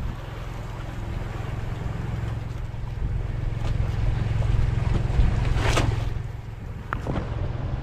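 A boat's engine running steadily, with a brief burst of noise about six seconds in.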